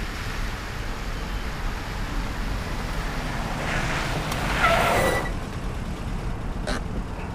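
Steady background noise like road traffic, swelling briefly with a few short tones about four to five seconds in.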